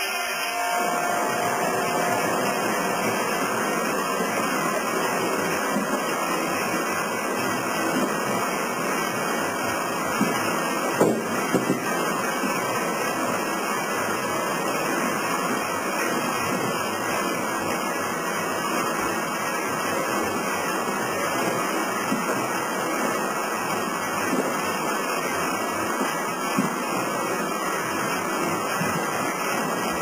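A historic sawmill's frame saw and its belt drives running, a steady dense mechanical clatter and rush that fills the shed. There are a couple of sharper knocks partway through.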